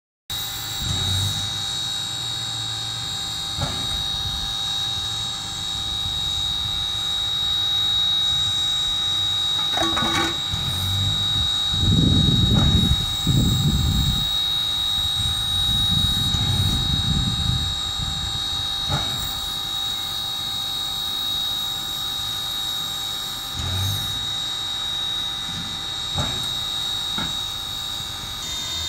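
K-36 steam locomotive No. 489 standing and simmering: a steady hiss with a constant high whine, a few sharp metallic clanks, and two stretches of deeper rumbling near the middle.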